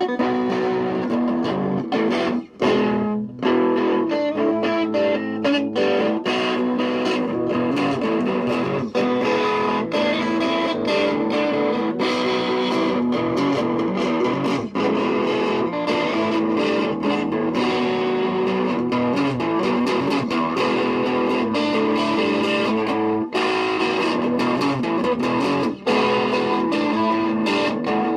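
Background music: electric guitar playing continuously with effects and some distortion.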